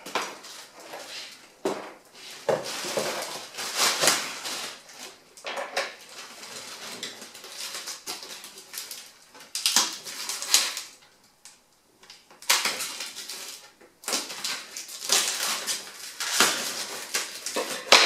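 Plastic wrap and foam packaging rustling and crinkling in irregular bursts as protective covers are pulled off a bicycle fork, with a few short knocks of handling.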